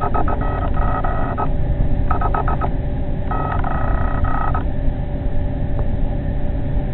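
Fishing reel drag buzzing in spells as a big catfish pulls line off, with a short run of separate clicks between the spells, over a steady low rumble.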